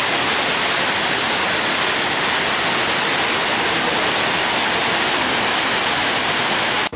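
Man-made waterfall splashing down stacked stone ledges: a loud, steady rush of falling water that cuts off abruptly near the end.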